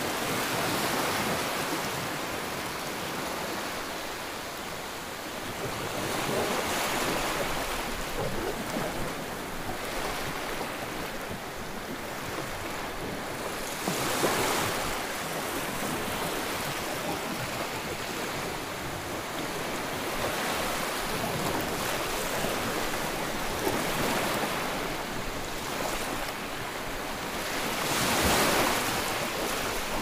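Sea waves breaking and washing up over a shore of rounded stones: a steady rush of surf that swells and ebbs with each wave every several seconds, the loudest surge near the end.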